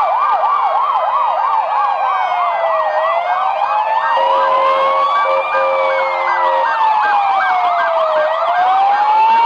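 Several ambulance sirens sounding together as ambulances drive past in convoy. A fast yelp at about four sweeps a second gives way in the first second to a slow rising and falling wail, over a quicker pulsed siren pattern, and a steady lower tone joins for about two seconds near the middle.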